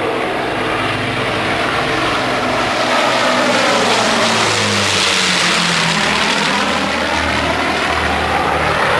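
Avro Lancaster bomber's four Rolls-Royce Merlin V12 engines and propellers droning on a low flypast. The sound builds as the aircraft comes overhead, and the engine note drops in pitch about halfway through as it passes and moves away.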